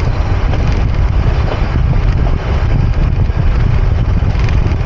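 Loud, steady rumble and rush of a moving toy train, with wind buffeting the microphone.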